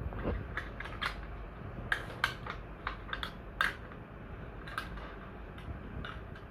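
Irregular light clicks and taps of small plastic and metal parts being handled inside an opened laptop while a hard-drive bracket and drive are fitted, over a low steady hum.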